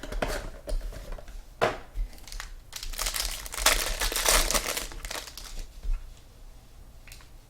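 Plastic wrapping on a trading-card box or its packs crinkling and tearing as it is ripped open by hand. The crackling comes in bursts, with one sharp rip about a second and a half in and the busiest crinkling in the middle, dying away near the end.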